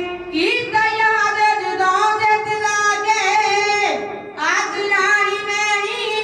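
A boy's voice singing a devotional recitation in a chant-like style, holding long, steady notes and gliding between them, with a short breath pause about four seconds in.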